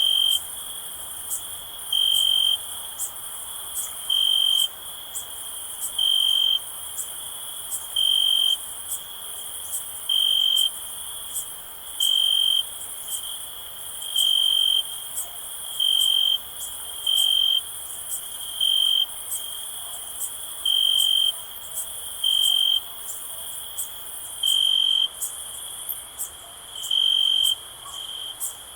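Crickets chirping, a steady high trill with a louder nearby cricket's chirp recurring about every two seconds, over a higher chorus of insects.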